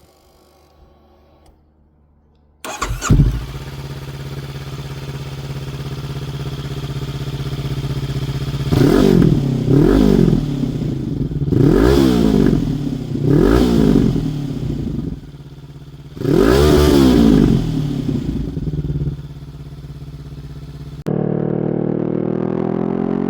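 A Honda 500-series parallel-twin motorcycle with a Black Widow 350mm aftermarket silencer, baffle removed, starts up about three seconds in and settles to an idle. It is blipped four times in quick short revs, then given one longer rev, and drops back to idle. Near the end it cuts suddenly to a steady engine note that rises slowly in pitch.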